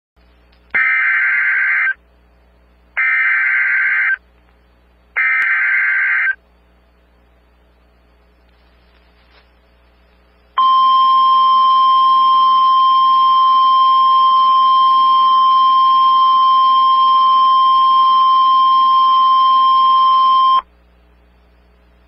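Emergency Alert System broadcast signal. Three short bursts of warbling digital header data, each about a second long, are followed after a pause by a single steady attention tone near 1 kHz that holds for about ten seconds and then cuts off, the NOAA Weather Radio style alert tone announcing a severe thunderstorm warning.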